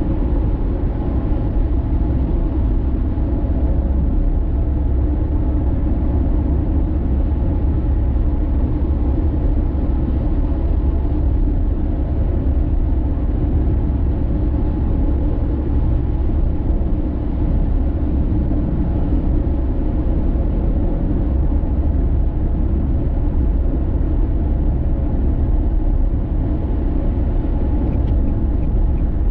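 Car driving at steady speed: a constant low rumble of road and engine noise that does not change.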